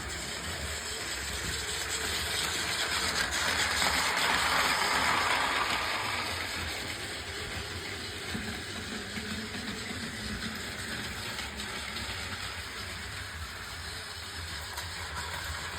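A train passing, its running noise swelling to a peak about four to five seconds in and then fading, over a steady low rumble.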